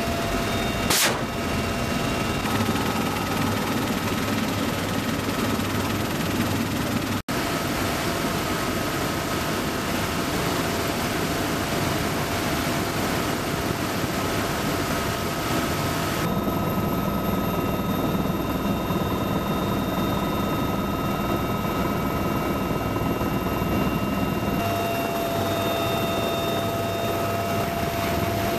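Military helicopter running: steady rotor and turbine noise with several constant whining tones, changing in character a few times. A single sharp crack sounds about a second in.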